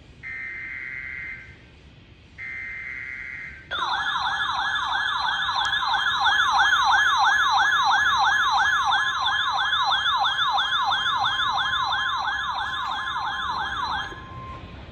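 Two of the three SAME data bursts of a NOAA Weather Radio required weekly test, each a harsh buzz about a second long. Then the RadioShack weather radio's own alert siren, set off by the SAME code, warbles up and down about three times a second for about ten seconds. A brief steady attention tone is left as the siren stops.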